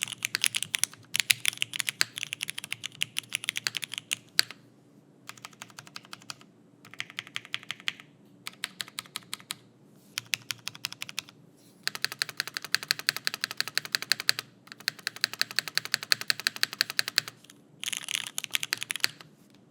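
Typing on an Owlab Vento 80 mechanical keyboard with broken-in, lubed Cherry MX Black linear switches on an aluminum plate, leaf-spring mounted with no foam, and GMK keycaps. Fast runs of keystrokes come in bursts, broken by short pauses of under a second.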